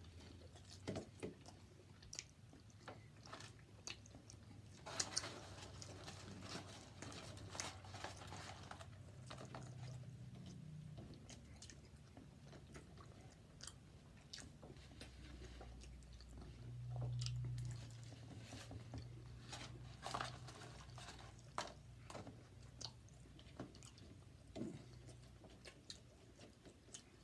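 Close-miked chewing of fast food: irregular wet mouth clicks and bites.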